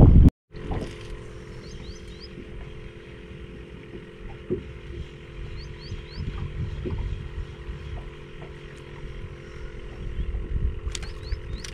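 A steady motor hum over a low wind rumble on the microphone. A few quick, high, rising bird chirps come in small groups, at about 2 s, 6 s and 11 s.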